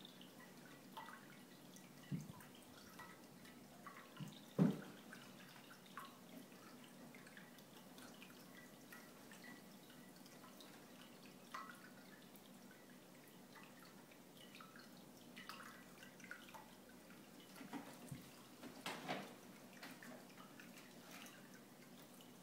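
Two F2 Savannah cats play-fighting on a carpeted cat tree: faint scattered taps and scrapes of paws and claws, with one louder thump about four and a half seconds in and a flurry of small knocks near the end.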